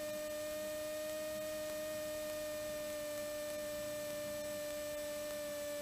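Cessna 182T's engine at takeoff power, heard through the cockpit intercom audio feed as a steady hum of a few pure-sounding tones.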